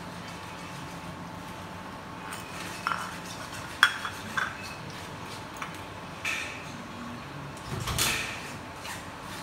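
Metal kitchen utensils clinking and scraping against a strainer and cooking pot: a few sharp clinks in the middle, then a longer rattle near the end, over a steady low hum.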